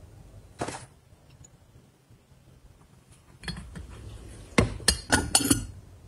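Porcelain tea things clinking: a single clink about half a second in, then a quick run of sharp china clinks near the end as teacup, saucer and spoon knock together.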